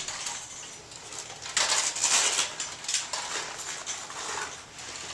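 Clinking and clattering of film lighting gear being set up, with metal stands and fittings knocking in irregular bursts. The loudest stretch comes about a second and a half in.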